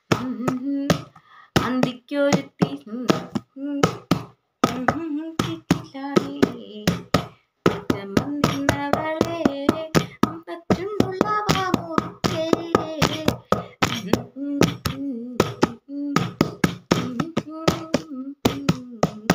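A woman singing a Malayalam folk song unaccompanied, holding long notes. She keeps time with sharp hand taps, several a second.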